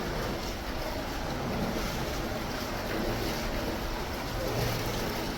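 Steady rush of road and wind noise from an Opel Corsa being driven, with no sudden events.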